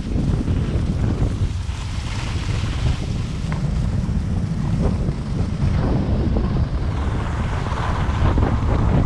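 Wind rushing over the microphone of a skier moving downhill, a steady low buffeting rumble. Under it is the hiss and scrape of skis on packed groomed snow, swelling now and then as the skis turn.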